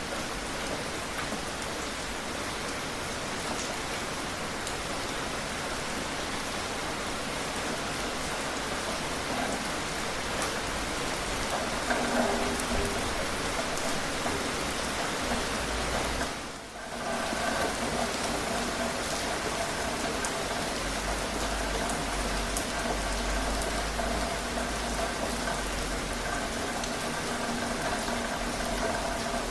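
Steady rain falling, an even hiss of many drops, with a brief dip in level about halfway through.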